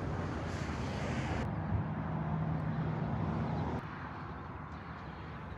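Steady rumble of road traffic from the nearby interstate, with a passing vehicle's hum in the middle; it drops a little quieter about four seconds in.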